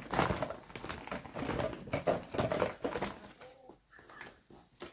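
Empty plastic bottles and tubes being handled and shuffled: a run of irregular knocks, taps and rustles that thins out near the end.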